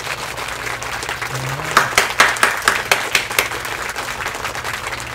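Hands clapping: a quick run of sharp claps, about four a second, starting a little under two seconds in and lasting under two seconds.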